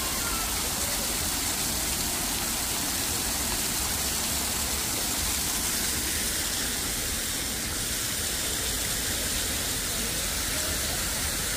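Artificial waterfall: water spilling down a wall of stone columns into a shallow pool, a steady rush of falling water.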